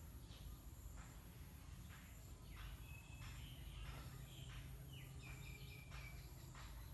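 Faint background with a few short, high bird chirps from about halfway through.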